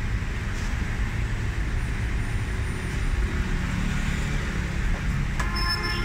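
Steady low background rumble with a hiss, the kind of din that passing traffic or a kitchen burner makes. A short pitched sound with several tones starts near the end.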